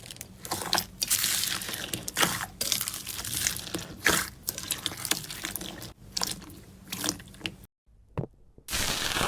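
Slime being squeezed and pressed by hand, giving irregular wet, sticky crackles and pops in bursts. The sound cuts out briefly near the end before more crackling begins.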